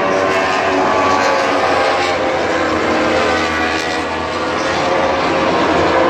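Several MotoGP racing motorcycle engines running together, a dense mix of engine tones with no single bike standing out.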